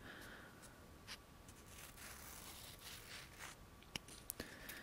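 Faint scratching against an object, with a few soft clicks.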